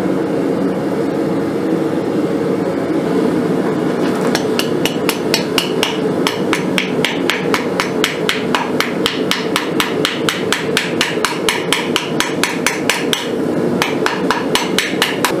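Hand hammer striking red-hot steel on the horn of an anvil, bending a forged scorpion to shape. The blows start about four seconds in and come fast and even, about four ringing strikes a second, with a short pause near the end.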